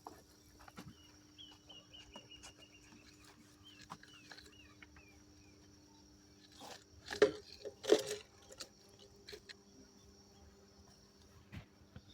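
A bird calling a quick run of high, short, down-slurred notes for about two seconds, then two louder short sharp sounds about a second apart near the middle, among scattered faint clicks.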